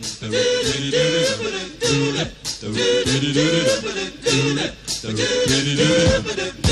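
Rock band playing live. A singer's voice is the loudest part, in short phrases, with drum hits between them.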